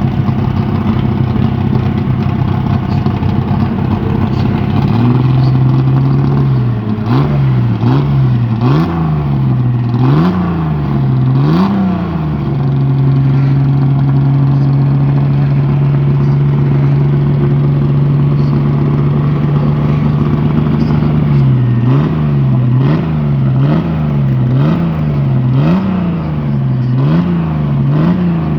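Chevrolet Opala ex-Stock Car's 4.1-litre straight-six racing engine, loud: idling at first, then blipped repeatedly at about one rev a second. About halfway through it is held at a steady raised rev for several seconds, then blipped again in the same quick rhythm.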